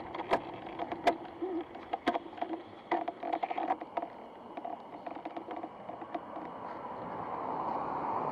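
Irregular sharp clicks and rattles over a steady hum, with a rush of noise swelling near the end.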